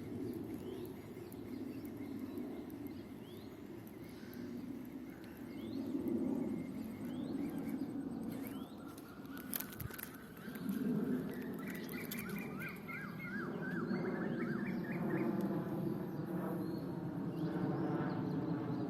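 Outdoor ambience: birds chirping over a steady low rumble, with a rising run of repeated bird calls in the middle.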